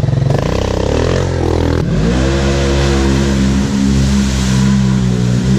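Off-road side-by-side engine accelerating from a low, pulsing idle. The revs climb, dip briefly and climb again about two seconds in, then hold steady at high revs.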